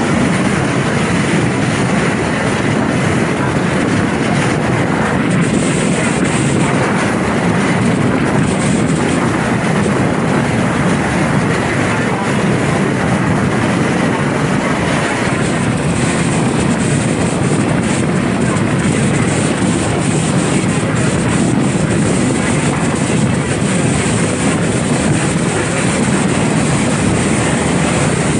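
A boat under way, its engine running as a loud, steady drone mixed with the rush of water and wind, holding even with no change in speed.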